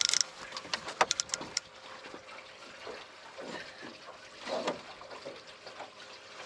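Water sloshing and lapping against the side of a fishing boat, with a quick run of sharp clicks about a second in.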